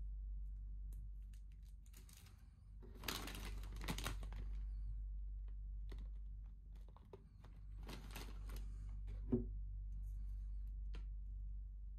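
Plastic snack wrappers and a plastic snack bag crinkling as they are handled, in two bursts about three and eight seconds in, with scattered light clicks between them. A single sharp knock a little after nine seconds in, with a low steady hum underneath.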